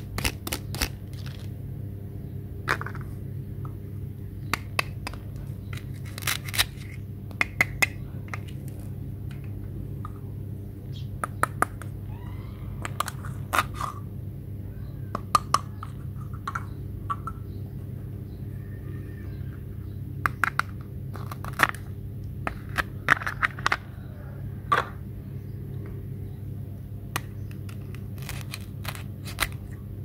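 Hard plastic toy knives and play-food pieces clicking and tapping against each other as they are handled, in scattered sharp knocks over a steady low hum.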